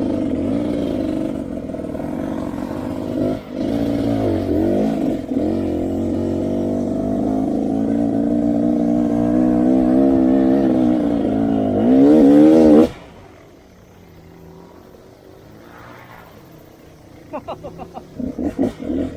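Off-road motorcycle engine running under changing throttle, its pitch rising and falling, then cutting off suddenly about thirteen seconds in, leaving a much quieter background.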